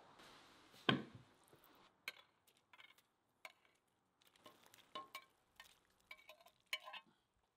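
A ceramic plate clinking and knocking against the rim of a cauldron as chunks of boiled meat are slid off it into the broth, in a string of short clinks. A single heavier thump comes about a second in.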